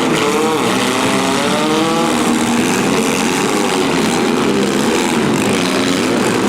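Engines of several compact demolition derby cars running and revving at once, with overlapping pitches that keep rising and falling.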